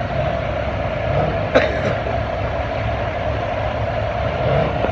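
Farm tractor engine running steadily, with a single sharp click about a second and a half in.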